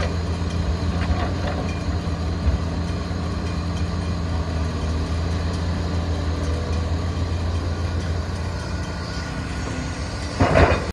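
Volvo excavator's diesel engine running steadily while it digs and loads soil into a dump truck. A brief loud clatter comes near the end.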